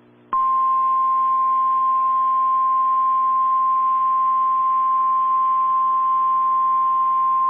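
NOAA Weather Radio 1050 Hz warning alarm tone: one steady, unbroken single-pitched tone that starts about a third of a second in and signals that a warning message follows. Under it runs a low hum with light static from the radio reception.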